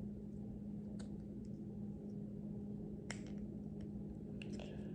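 A few faint, short plastic clicks and taps as a minifigure is fitted into place by hand, over a steady low electrical hum.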